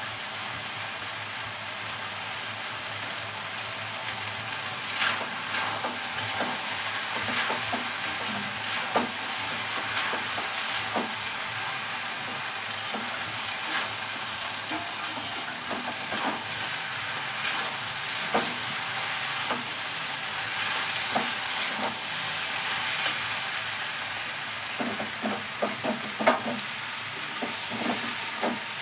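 Food sizzling steadily in a large aluminium kadai as a metal spatula stirs and scrapes it, with scattered knocks of the spatula against the pan and a quick run of them near the end.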